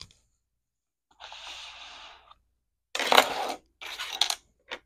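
Cardboard box scraping as it slides across a tabletop, then loose plastic Lego bricks clattering and clicking as they are handled and set down.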